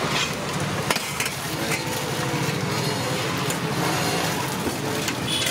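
Steel ladle scraping and clinking against a steel curry pot, with a sharp clink about a second in, over steady street traffic noise and faint voices.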